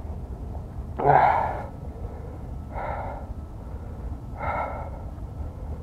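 A man breathing hard: three heavy, gasping breaths about a second and a half apart.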